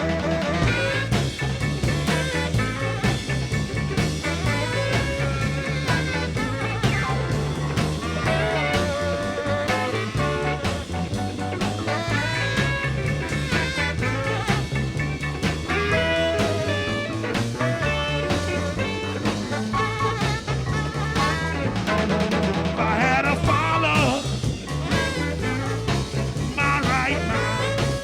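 Live electric blues band playing an instrumental passage with no vocals: a repeating bass line and drums under melodic lead lines.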